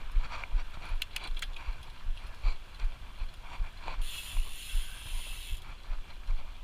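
Mountain bike drivetrain: a few sharp clicks about a second in, then the rear hub's freewheel ratchet buzzing for about a second and a half while the bike coasts, over a constant low rumble.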